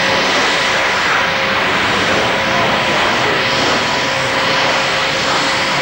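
Fighter jet flying a display overhead, its engine heard as a loud, steady rush of noise with no breaks.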